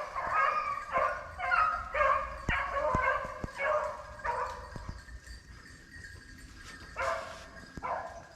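A pack of rabbit-hunting hounds baying and barking in a chase, giving mouth on a running rabbit's trail. Short calls come thick and overlapping for the first few seconds, then thin out to a couple of barks near the end.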